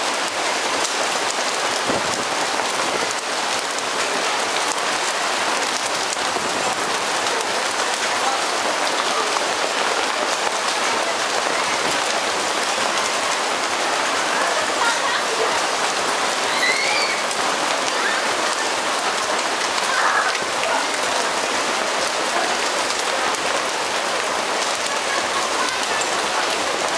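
Hail and heavy rain coming down on market stall awnings and the wet pavement: a steady, dense patter of countless small hits.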